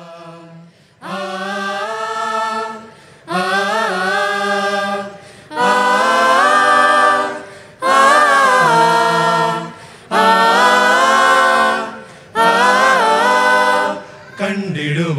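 Mixed group of men and women singing a cappella in harmony: six held chords of about two seconds each, with short breaks between. It is the opening of a Malayalam Christian song.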